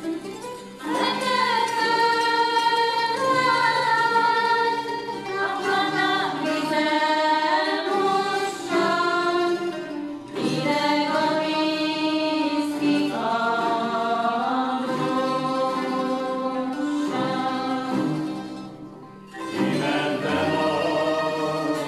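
A Hungarian folk song sung by a small group to citeras (Hungarian board zithers) strummed in tremolo. It comes in phrases, with a short break about ten seconds in and another near the end.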